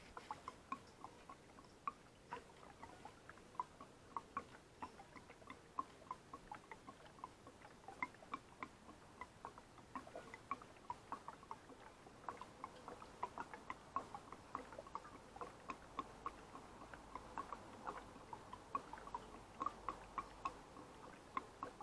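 Petrol glugging out of a plastic jerry can into a motorcycle fuel tank: a faint, irregular run of small gurgling pops, a few a second, that grows busier over the second half.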